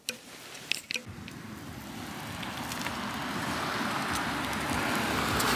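A car approaching along the street, its tyre and engine noise growing steadily louder over several seconds. A few short clicks come in the first second.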